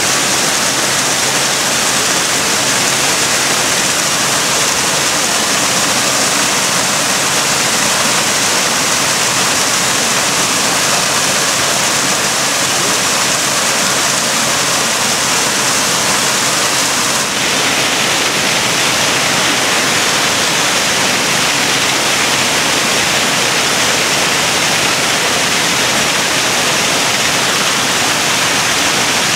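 Man-made waterfall pouring over rockwork into a pool: a steady, loud rush of splashing water. About seventeen seconds in the rush changes abruptly to a brighter hiss.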